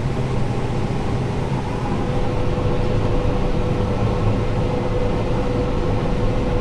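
Combine harvester running steadily while picking corn: an even machinery drone with a thin whine that becomes clearer about two seconds in.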